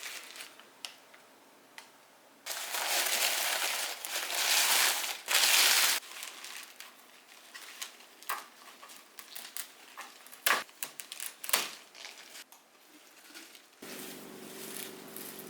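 Kitchen handling sounds during food preparation: a few seconds of dense rustling or crinkling noise, then scattered clicks and knocks. A steady hum begins near the end.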